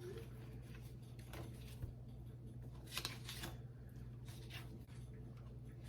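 Faint rustling and soft taps of cookbook pages being turned and handled, a few separate strokes, over a low steady hum.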